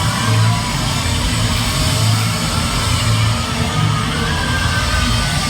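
Live rock band playing loud, with a heavy bass line.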